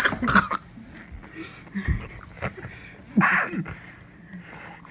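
Short, breathy vocal outbursts, gasps and exhales rather than words, in three bursts: a sharp loud one at the start, a smaller one about two seconds in, and another a little after three seconds.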